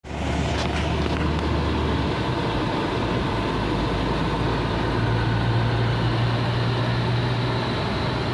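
A motor vehicle driving: a steady engine hum under road noise, the engine note stepping up in pitch about five seconds in.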